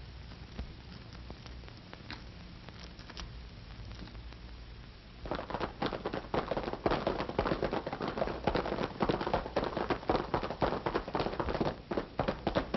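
Radio-drama sound effect of horses' hoofbeats: after a few seconds of faint hum and stray clicks, a rapid clatter of hooves starts about five seconds in and keeps going.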